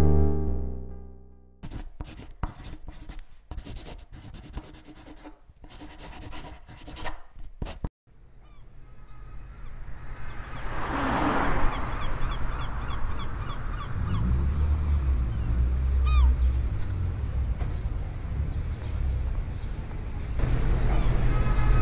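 Soft synth music fades out, then several seconds of crackling, static-like noise. Street ambience follows, a low steady traffic rumble with birds calling over it, and music comes back in near the end.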